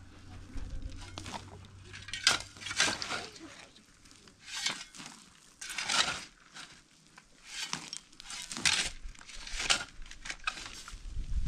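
Irregular crinkling and rustling: a string of short, noisy scrapes and rustles with brief pauses between them.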